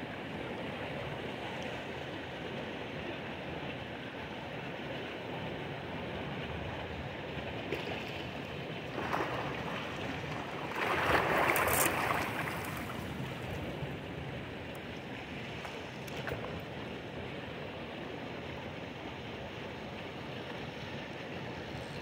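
Steady rush of a flowing river. About halfway through comes a louder burst of splashing as a hooked trout is brought into a landing net.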